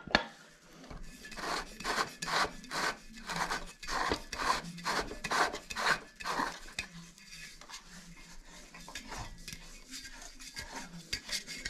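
Coleman propane lantern being twisted onto a propane cylinder, turned by hand in repeated short strokes that each make a dry scraping rub. The strokes come about two to three a second and grow fainter in the last few seconds.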